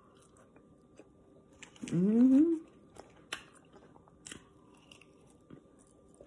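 Fried potatoes being chewed close to the microphone, with wet mouth clicks and smacks. About two seconds in there is a rising hummed "mmm" of enjoyment, the loudest sound.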